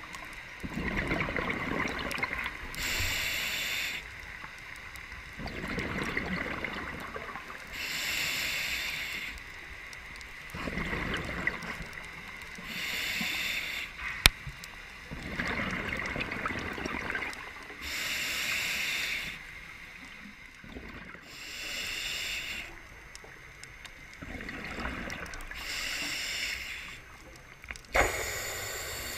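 Scuba diver breathing through a regulator underwater: a hissing inhale through the demand valve alternates with a low, bubbling exhale, one breath about every four to five seconds. A single sharp click sounds about halfway through.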